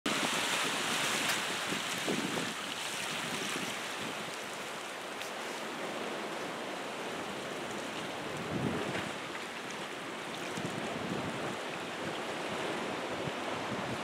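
Pacific Ocean surf washing through a rock arch and over a shallow rocky pool: a steady hiss of moving water, a little louder in the first couple of seconds and swelling once more a little past halfway.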